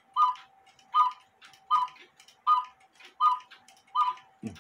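Mechanical clock ticking steadily: a sharp tick about every three-quarters of a second, with fainter clicks between, over a faint steady hum.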